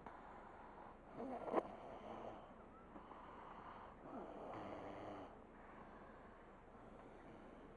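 A person snoring in their sleep: two snores about three seconds apart, one near the start and one about halfway through, with a sharp click during the first.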